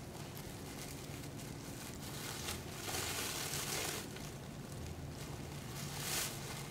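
Thin plastic dog waste bag crinkling as it is handled, louder about three seconds in and again around five seconds in.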